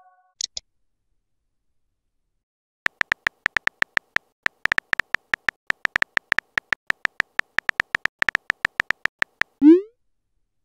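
Chat-app typing sound effect: a long run of short, identical electronic beeps, about six a second, one for each letter typed into the message box. Near the end it stops and a short rising swoosh plays as the message is sent.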